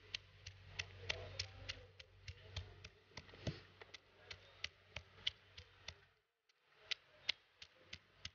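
Stone pestle knocking on shallot cloves on a flat stone grinding slab, crushing them: light, quick taps about three or four a second, with a short pause about six seconds in before the tapping resumes.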